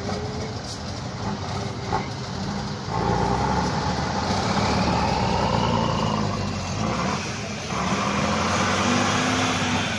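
Heavy off-road trial truck's diesel engine revving hard under load as it claws up out of a mud pit, getting louder about three seconds in, easing briefly near the end, then pulling again.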